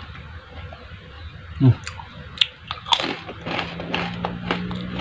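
Close-miked eating noises, with scattered crunches and mouth clicks; the loudest comes a little under two seconds in. A steady low hum comes in past halfway.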